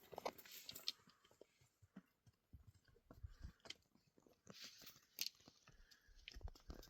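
Faint, irregular crunching and clicking.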